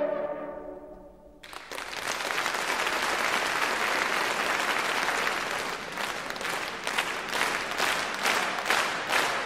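The final held chord of French hunting horns (trompes de chasse) fades away, and about a second and a half in an audience breaks into steady applause, with single claps standing out more clearly near the end.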